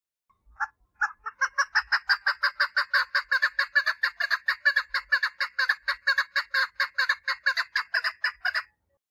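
Female chukar partridge giving its mating call: a single note, then a fast, steady run of short clucking notes, about five a second, lasting some eight seconds before it stops.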